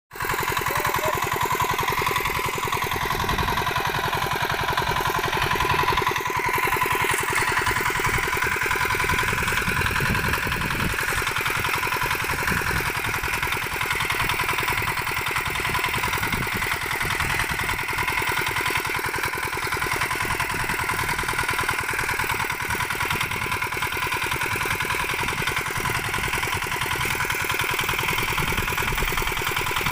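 Small engine of a walk-behind power weeder running steadily while it works the soil between crop rows.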